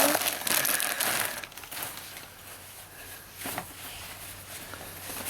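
Gift wrapping paper crinkling and rustling as a soft present is unwrapped. It is loudest in the first second and a half, then turns to quieter rustling with a few small clicks.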